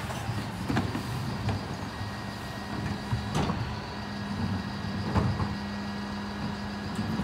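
Mercedes-Benz Econic bin lorry's engine running steadily, with a few short knocks and clatters scattered over it.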